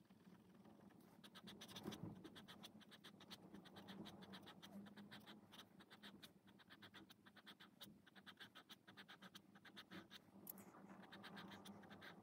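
Faint scratching of a fine-tipped ink pen on sketchbook paper, drawing lines in quick, short, repeated strokes.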